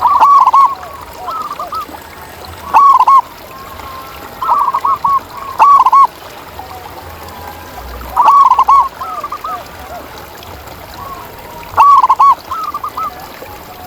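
Zebra doves (perkutut) cooing: loud phrases of quick, rapidly repeated coos every two to four seconds, with fainter coos in between.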